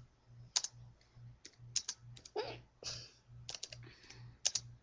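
Keys tapped on a computer keyboard in short irregular runs of clicks, with a faint low hum pulsing about twice a second underneath.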